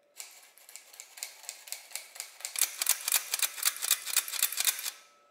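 Flour being sifted through a sieve into a bowl: quick, even, rattling taps, about four or five a second. The taps grow louder about halfway through and stop near the end.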